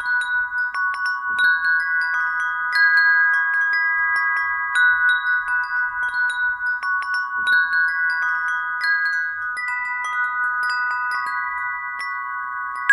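A string of small brass wind bells ringing in the breeze: irregular strikes with several sustained, overlapping tones, the strikes thinning out near the end.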